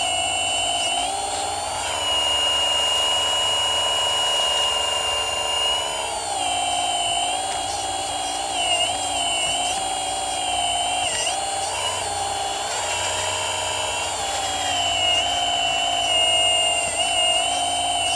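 Whine of a radio-controlled model Komatsu PC360 hydraulic excavator's electric pump motor. It holds a steady pitch for a few seconds, then dips and rises repeatedly as the hydraulics take load.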